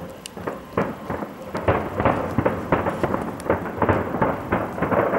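Aerial fireworks shells bursting in a rapid, irregular series of bangs, several a second, each with an echoing tail.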